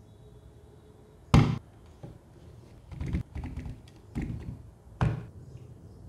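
Knocks and clunks of objects being handled and set down. A sharp knock comes about a second in, then softer taps and a cluster of clunks, and another knock near the end.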